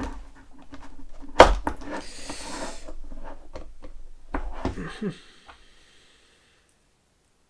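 Screwdriver bits clicking and rattling in a plastic bit holder as it is handled, with one sharp knock about one and a half seconds in. The handling stops about six seconds in.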